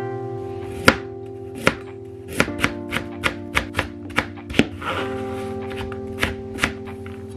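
Knife chopping on a cutting board: about a dozen sharp, irregular strokes. Background guitar music plays under it.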